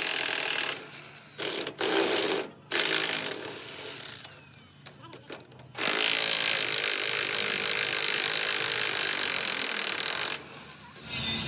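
Power tool working on the steel truck chassis: several short bursts, then a longer steady run from about six seconds in that stops shortly before the end.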